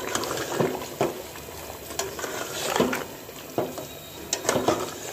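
Metal spatula stirring thick mutton korma gravy in a metal cooking pot, scraping and clinking against the pot's sides and bottom every second or so.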